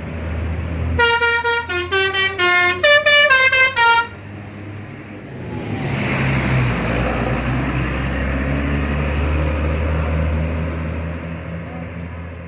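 Bus telolet musical air horn playing a rapid tune of about ten notes, each at a different pitch, over the bus's idling diesel engine. After the tune a steady rushing engine noise swells and holds.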